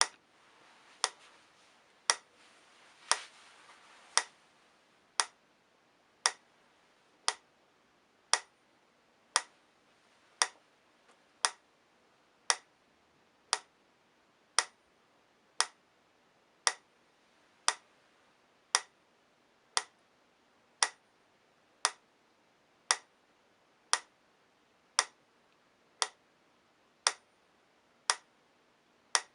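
Prim metronome ticking steadily at 58 beats per minute, one sharp click a little more than a second apart.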